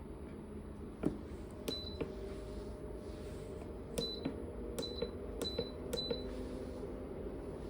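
Control panel of a BONARCA CRX-400 portable car fridge being pressed: a click, then about five button presses, each with a short high beep, over a steady low hum from the running unit.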